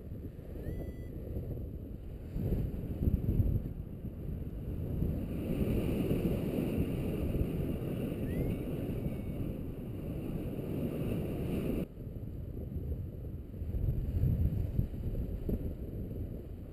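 Wind buffeting the microphone of a camera carried in paraglider flight: an uneven low rumble that swells and eases in gusts and drops suddenly about twelve seconds in. A couple of faint short rising chirps sit above it.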